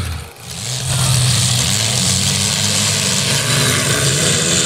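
Demolition derby cars' engines running in the mud arena. The sound dips briefly just after the start, then stays steady.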